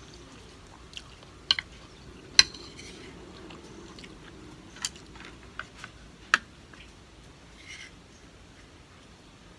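Close-up eating sounds: cutlery clicking against dishes in a handful of sharp separate clinks, the loudest about two and a half seconds in, with chewing in between.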